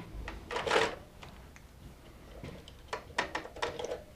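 Plastic clicks and handling sounds from an HP Designjet 500/800 print head carriage as its cover latch is opened and the print heads are pulled out. A short rustle comes about half a second in, and a quick cluster of sharp plastic clicks comes near the end.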